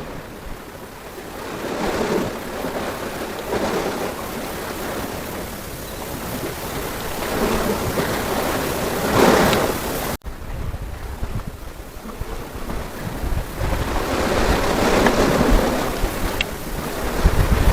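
Sea waves washing in and drawing back in repeated swells, with wind buffeting the microphone. The sound drops out briefly about ten seconds in.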